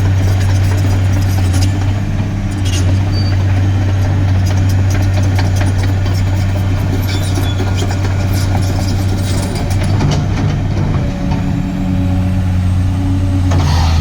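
Cat 345C hydraulic excavator's C13 diesel engine running steadily with a deep, even hum; about ten seconds in the engine note changes briefly, then settles again.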